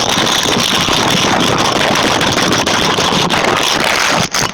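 A loud, harsh, continuous rattling crackle made of many rapid clicks, deliberately made as an annoying noise. It cuts off suddenly near the end.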